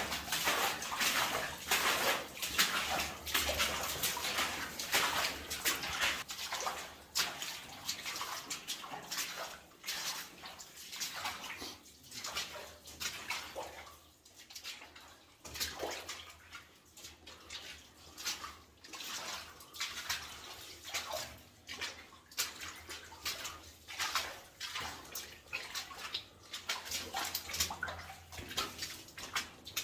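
Boots wading through shallow water and mud, a steady run of splashing and sloshing steps. The splashing is louder for the first several seconds, then softer.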